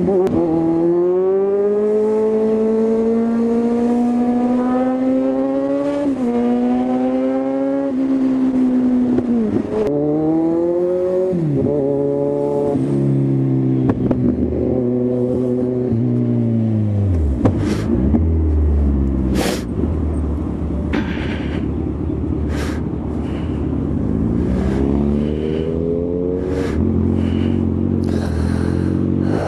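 Kawasaki Z1000 inline-four engine pulling through the gears, its pitch climbing and then dropping at each gear change. About halfway through it settles to a low steady run, then pulls away again near the end. Wind noise runs over it, and there are several sharp clicks in the second half.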